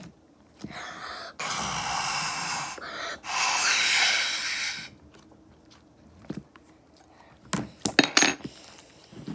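Air blown hard through a straw into a bubble of slime: two long breaths, starting about one and a half seconds in and again about three seconds in. Near the end come a few short, sharp sounds.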